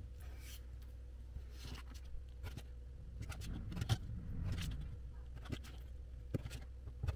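Cardboard pieces being handled and worked by hand: scattered light taps, scrapes and rustles over a low steady hum, busiest a few seconds in.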